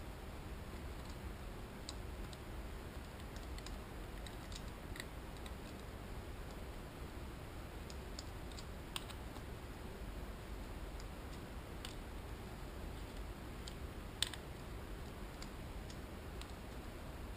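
Scattered small clicks and taps of hands, a hand tool and small metal parts working on a 2001 Suzuki GSX-R 750's cylinder head, over a low steady background noise. The sharpest click comes about fourteen seconds in.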